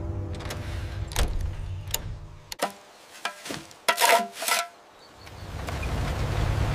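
A low rumble with a few sharp clicks of cockpit toggle switches, then a shovel blade striking and scraping in soil, loudest about four seconds in, with a brief metallic ring. After that a steady rushing noise with a low rumble builds up.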